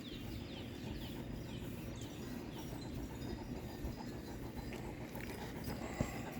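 A dog panting in quick, even breaths, with a short knock near the end.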